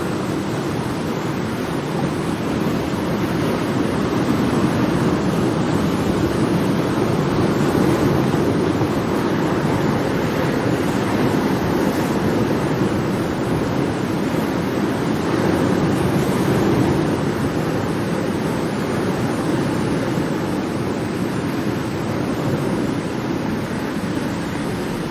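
Ocean waves washing in as a steady rush of surf that swells and eases every few seconds.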